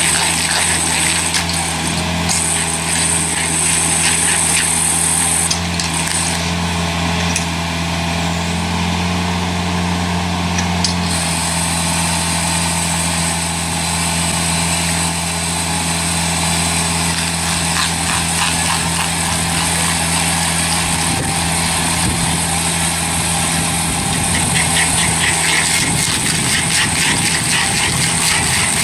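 Heavy forestry machine's engine running steadily under load, with a constant low drone and a high whine.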